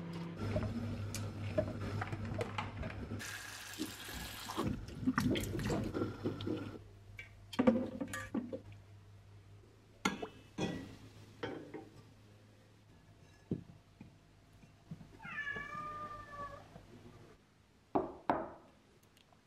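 Kitchen handling sounds: clinks and knocks of crockery and packaging, with a tap running briefly about 3 seconds in and a low steady hum that stops near the end. A cat meows once, a drawn-out call of about a second and a half, in the last third.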